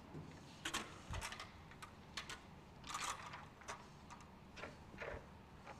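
Quiet background with a dozen or so scattered light clicks and knocks and a low thump about a second in.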